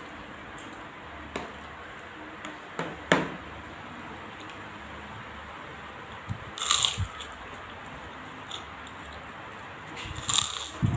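Biting into a crispy opak cracker: two loud crunches, one about halfway through and one near the end, with a few short clicks before them.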